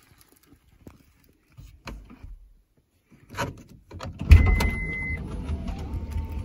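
Daihatsu Atrai van's engine starting, heard inside the cabin: a loud thump about four seconds in, then a steady low running sound with a short beep and a slowly rising whine. Before it there are only a few faint clicks.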